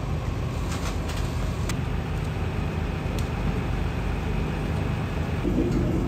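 An engine running steadily at idle, with a few light clicks of tools, one about a second in and another about three seconds in.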